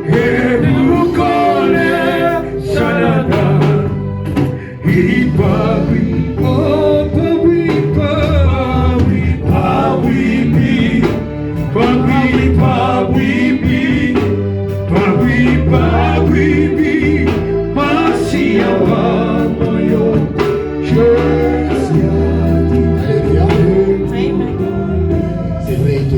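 Gospel music: voices singing over sustained bass notes and percussion, played for the offering.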